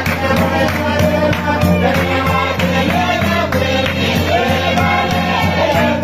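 John Frum string band music: a group of voices singing together over a steady, evenly spaced beat and a sustained bass line.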